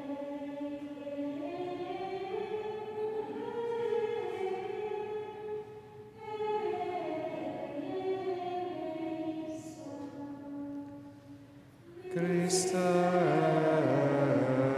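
Choir of nuns singing a liturgical chant in sung phrases with short pauses between them. The singing grows louder and fuller about twelve seconds in.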